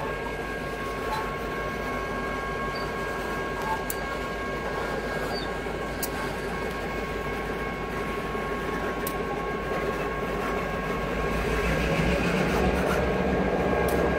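Railroad tank cars rolling slowly through a grade crossing: a steady rumble of wheels on rail with a few faint clicks and some thin, steady high-pitched tones over it. It grows louder near the end as a deeper hum joins in.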